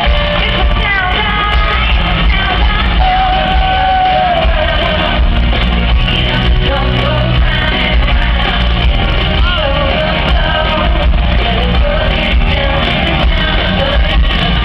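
Live pop concert music in an arena: a band plays with women singing, while the crowd near the recording yells and screams along. The sound is loud and steady throughout.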